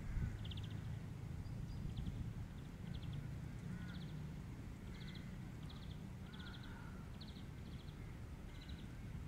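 An animal's short, high, rasping chirps, each a quick train of clicks, repeating about once a second over a steady low rumble.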